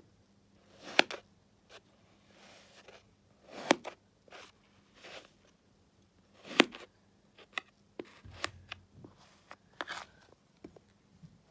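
A knife slicing down through moulded kinetic sand: a soft crunch as the blade passes through, ending in a sharp click as it hits the plastic tray, three times about three seconds apart. Lighter taps and scraping of the blade on the tray follow near the end.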